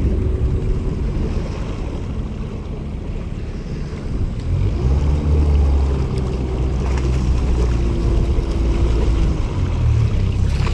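Wind buffeting the microphone and waves washing around a small boat on open water. A low steady hum comes up about halfway through and holds for several seconds.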